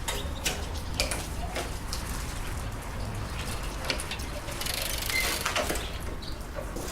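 Machinery running with a low rumble and irregular mechanical clicks and clatter.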